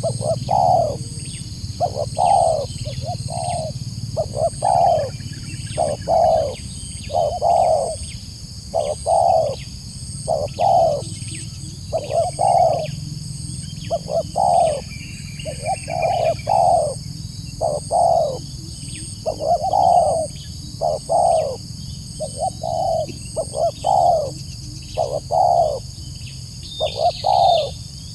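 Spotted dove (tekukur) cooing over and over: short low coos, often in pairs or threes, in a steady run. A faint high chirp repeats about once a second behind them.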